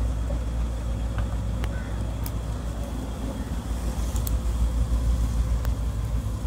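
Steady low engine rumble runs throughout, with a few faint light clicks and knocks.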